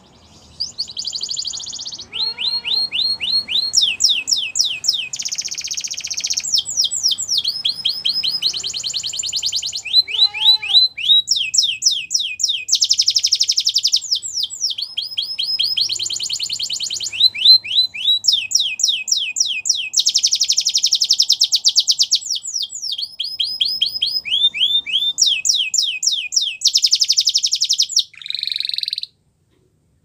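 Canary singing a long, unbroken song of rapid, high-pitched repeated notes and trills, switching to a new phrase every second or two. The song stops about a second before the end.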